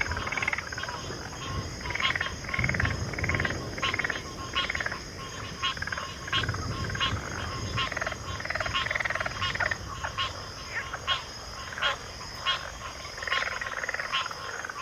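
Frog chorus in a backwater: many overlapping frogs giving short, sharp clicking calls and warbling bursts in an irregular rhythm, over a steady high-pitched drone.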